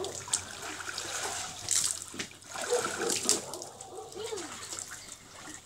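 Water splashing and sloshing in a plastic water tank as children move about in it, in uneven surges that die down near the end.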